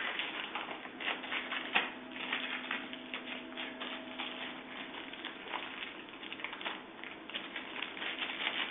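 Allen key working the socket-head bolts of a scooter's handlebar clamp, a rapid, irregular run of small metal clicks and taps as the bolts are turned tight.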